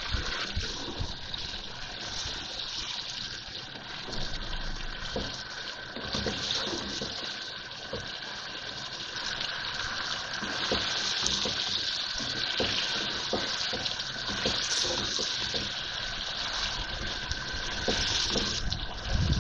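Beef pieces and ginger-garlic paste frying in hot oil in a pot, a steady sizzling hiss that swells now and then, with light knocks and scrapes from a wooden spoon stirring them.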